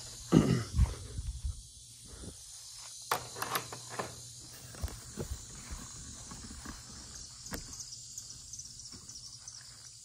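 Insects chirping in a steady high-pitched trill of rapid pulses. A few low thumps and sharp clicks, like footsteps and the phone being handled, come in the first half.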